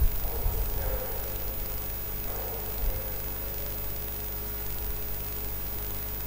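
Steady low hum and hiss of quiet room tone, with a soft low thump at the start and another about three seconds in.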